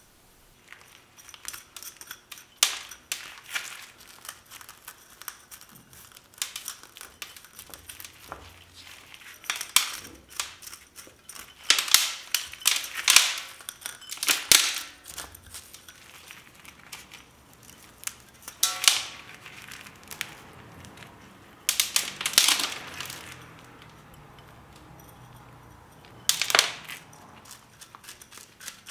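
A pointed stick raking and picking through a bonsai juniper's root-bound root ball: dry scraping and crackling of fine roots and soil being loosened, in irregular strokes with louder bursts now and then.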